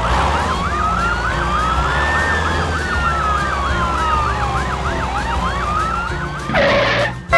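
Police car siren sound effect: a slow wail that rises and falls, overlaid with a fast yelp cycling about three times a second, over a low steady rumble. A short, loud noisy burst comes near the end.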